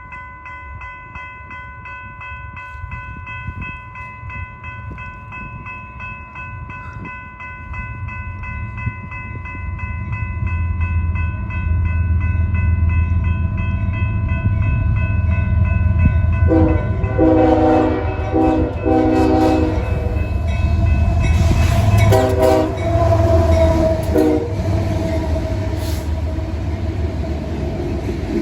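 Freight train led by a GE Evolution-series diesel locomotive approaching and passing, its engine's low rumble growing louder over the first dozen seconds. About two-thirds of the way in, the locomotive horn sounds a quick run of four blasts, then a short blast and a longer one. A steady high ringing is heard through the first part and fades as the horn begins.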